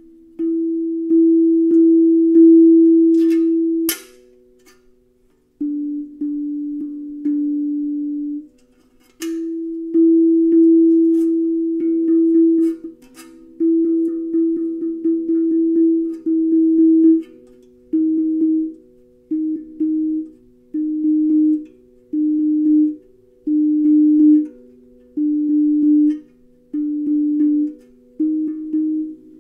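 Steel tongue drum struck with a soft mallet, ringing out one low note at a time while its pitch steps between a few notes, as magnets placed under the tongue retune it. Long held notes at first, then shorter strokes about every second and a half, with a couple of sharp clicks in the first ten seconds.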